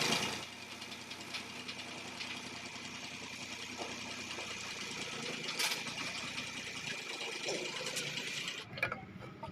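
A small engine running steadily with a fast, even rattle, cutting off about a second before the end, with a sharp click about halfway through.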